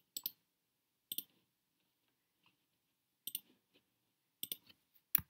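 Sharp, separate clicks of a computer mouse and keyboard, about six of them, some in quick pairs, as text is selected, copied and pasted.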